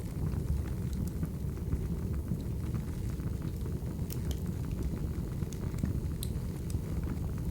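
Crackling wood fire ambience: a steady low rumble of burning logs with scattered sharp crackles and pops, several of them about four to six seconds in.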